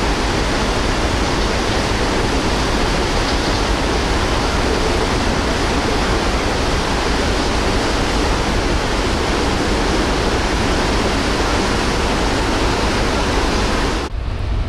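Steady loud rushing of wind and sea on the open deck of a ferry under way. About fourteen seconds in, it cuts abruptly to a duller rumble with less hiss.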